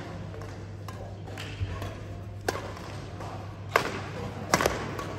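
Badminton rackets striking a shuttlecock in a rally, a sharp pop about every second, with two hits in quick succession near the end, ringing in a large hall over a steady low hum.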